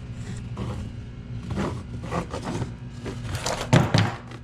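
Tyre levers and a bicycle tyre scraping and knocking against the wheel rim as the tyre is worked loose around the wheel, with irregular clicks and a louder clatter about three and a half seconds in.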